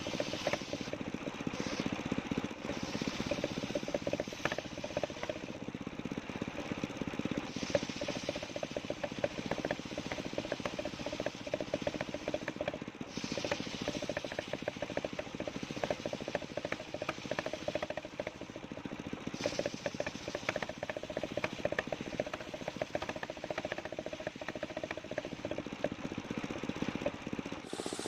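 Engine-driven mobile circular sawmill running steadily with a fast, even beat, at work on a coconut-palm trunk.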